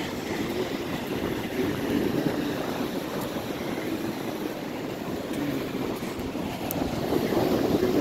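Wind buffeting the camera microphone over the continuous wash of ocean surf breaking on the beach, getting louder near the end.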